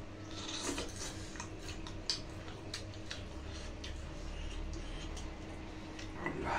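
Eating by hand: scattered small wet clicks of chewing and lip smacking, with fingers picking pork leg and rice off plastic plates, and one short louder noise near the end.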